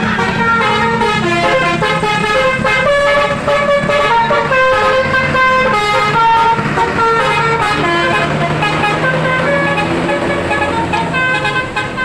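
Bus 'telolet' musical horn, a Basuri V3 multi-tone horn, playing a quick tune of stepping notes, with the bus engine's low hum underneath.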